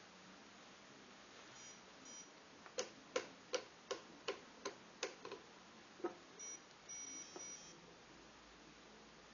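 Fidelity Sensory Chess Challenger 12-B chess computer giving two short electronic beeps, then a quick run of about eight sharp clicks, roughly three a second. A few longer beeps follow a second later.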